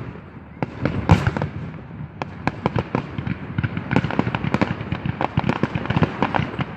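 Fireworks and firecrackers going off in rapid, irregular bangs and crackles, thicker from about two seconds in.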